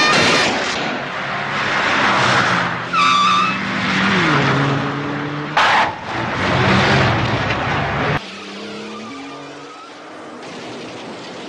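Film car-chase sound: engines revving and tyres squealing, with a short loud noise about five and a half seconds in. About eight seconds in it cuts abruptly to a quieter, steady traffic sound.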